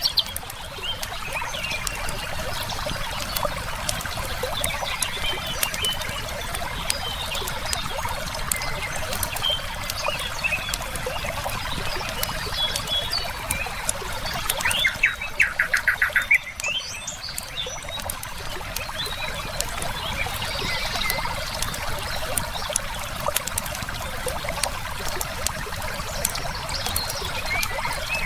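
Steady rush of a flowing river with a wood fire crackling in sharp pops and small songbirds chirping now and then. About fifteen seconds in, a bird gives a fast trill lasting a second or two.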